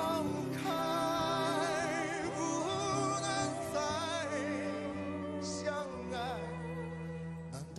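Background music from a Mandarin ballad: a melody line with wide vibrato over sustained chords.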